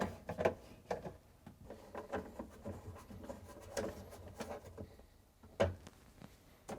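Faint scraping and clicking of a screwdriver turning screws into a refrigerator's plastic top panel, with a sharper click about five and a half seconds in.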